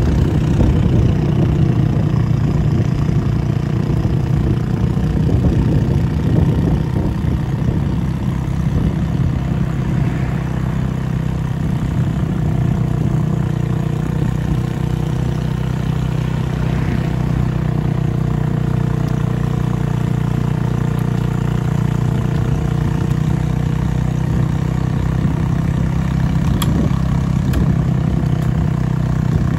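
Motorbike engine running steadily at a low, even pace, a constant loud exhaust hum; the motorbike is one that needs a new muffler.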